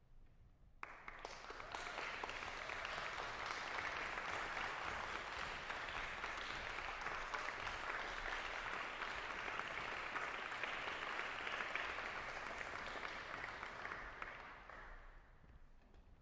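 Audience applauding as the performers walk on stage: the clapping starts suddenly about a second in, holds steady, and dies away near the end.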